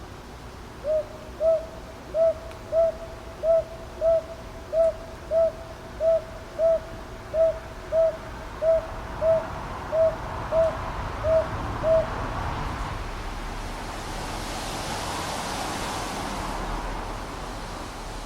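Northern boobook calling a steady run of paired hoots, "hoo-hoo, hoo-hoo", about nine pairs over some eleven seconds, and then falling silent. A soft rush of noise swells up and fades toward the end.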